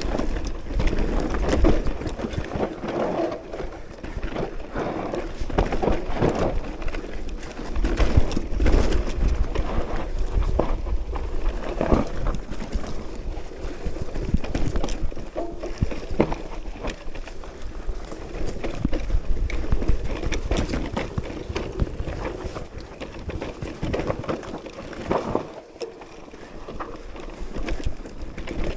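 Mountain bike descending a rough trail: tyres, frame and chain clattering over bumps in a continual run of knocks, with wind rumbling on the microphone.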